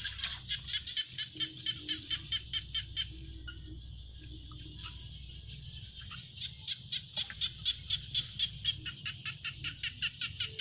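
Fast runs of short, high chirps, about five a second, from a small animal: one bout over the first three seconds, then another from about six seconds in, over a low steady rumble.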